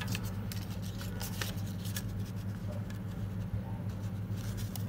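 Paper 100-euro banknotes being handled, giving scattered short crisp rustles and crackles, over a steady low electrical hum.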